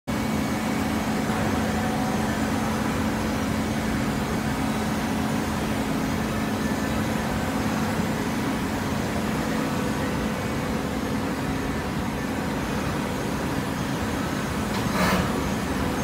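TCM horizontal hydraulic baler line running: a steady mechanical hum with a droning tone, and a brief louder noise about a second before the end.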